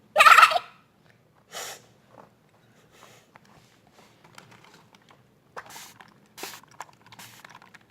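A short, loud breathy vocal sound near the start and a fainter one about a second and a half later, then scattered light clicks and rustles of small toy figures being handled.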